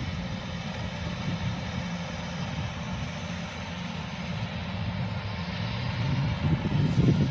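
Kubota DC-105X combine harvester running steadily while harvesting rice: a diesel engine drone with the steady whine of its threshing machinery, growing a little louder near the end.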